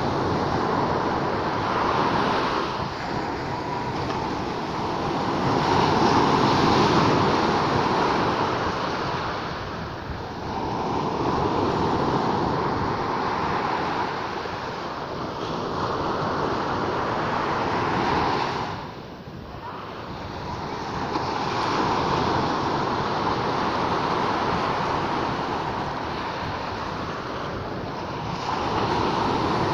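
Sea waves breaking and washing on the shore, the surf swelling and falling away every few seconds.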